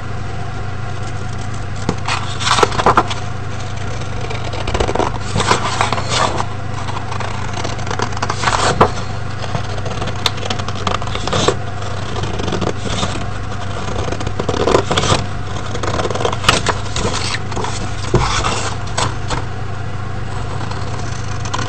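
Scissors cutting through a sheet of A4 paper, with irregular snips and paper rustling, over a steady low hum.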